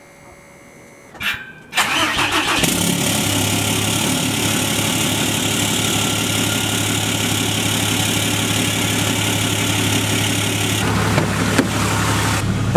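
Cummins turbo-diesel in a Dodge Ram pickup cold-starting after sitting for days in the cold: it cranks briefly about two seconds in, catches, and settles into a steady, loud idle, heard at the exhaust tip.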